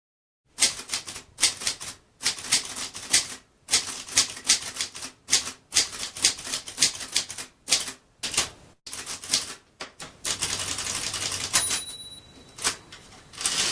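Typewriter keys clacking in quick, uneven runs. Near the end there is a rushing slide, like a carriage return, and a brief bell ding.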